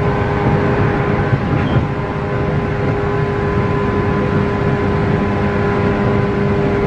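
A 117-series electric train's traction motors humming steadily at speed, with wheels rumbling on the rails, heard from inside the passenger car.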